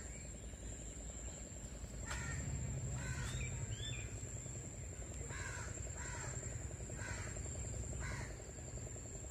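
Crows cawing repeatedly, about six short harsh caws spread across the stretch, with a thin steady high-pitched tone underneath throughout.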